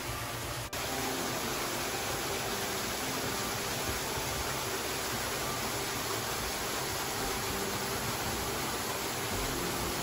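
Small waterfall splashing into a rock pool, with a steady rush of falling water. The sound briefly drops out just under a second in.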